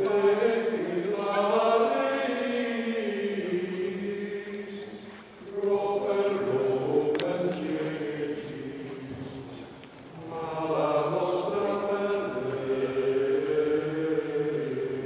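A small choir chanting a hymn in three long, slow phrases with brief pauses for breath between them.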